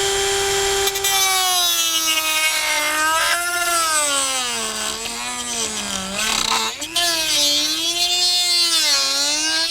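Corded Dremel rotary tool with a reinforced cutoff wheel cutting through the plastic gussets behind a door handle. It runs steadily for about a second, then its whine dips and recovers again and again as the wheel bites into the plastic under load.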